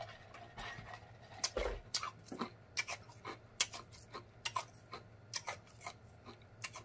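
A man swallowing a gulp of a drink, then smacking his lips and tasting it, with short wet mouth clicks about two or three a second.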